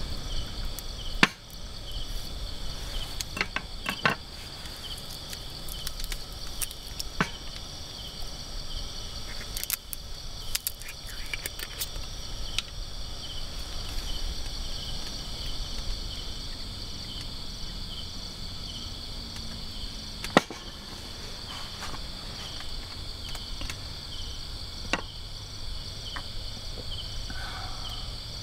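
A steady, high-pitched chorus of insects, with a few sharp knocks and clicks scattered through it.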